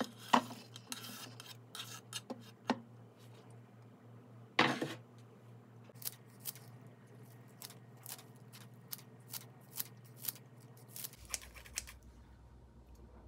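Kitchen scissors snipping fresh chives over a salad bowl: a run of short, sharp snips about two a second. Before it, chopped cucumber is scraped from a wooden cutting board into the bowl, with a louder knock about halfway through.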